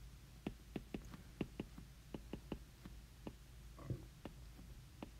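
Stylus tip tapping and clicking on a tablet's glass screen during handwriting: light, irregular clicks a few times a second, with one softer, longer sound about four seconds in.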